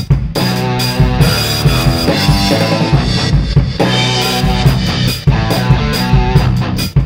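Drum kit played hard along with a rock backing track: steady, driving bass-drum, snare and cymbal hits over guitar and bass.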